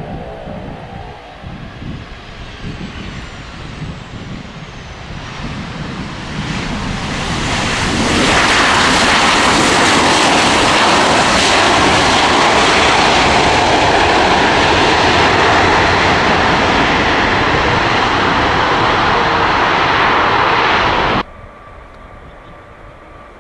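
Boeing 737-800 landing. Its jet engines grow louder as it comes in to touch down, then stay loud and steady through the landing roll. The noise cuts off abruptly near the end, leaving the fainter sound of a distant jet on approach.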